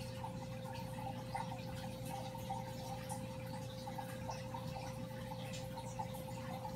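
Aquarium pump running: a steady motor hum with water trickling and fine bubbling over it.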